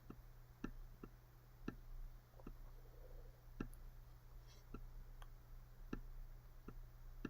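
Faint sharp clicks, one or two a second at an uneven pace, over a low steady hum.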